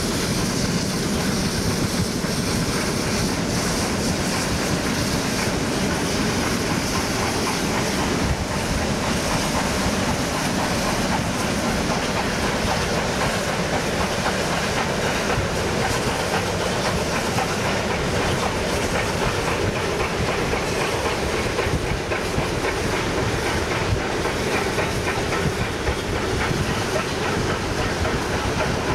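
Ex-South Australian Railways 4-8-4 steam locomotive No. 520 working a train uphill: a steady loud mix of exhaust, steam hiss and wheels on the rails.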